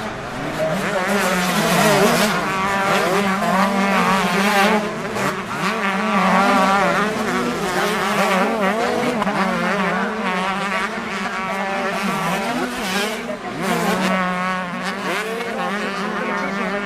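Several motocross bikes' engines revving up and down together as they ride the track, with pitches rising and falling throughout over a steady low drone.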